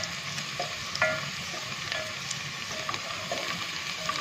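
Sliced onions sizzling in hot ghee in a metal pot while a wooden spoon stirs them. The hiss is steady, with short scrapes and clicks of the spoon against the pot and a sharper knock about a second in.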